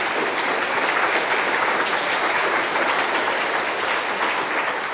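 Lecture-hall audience applauding: a steady, even patter of many hands clapping that fades away near the end.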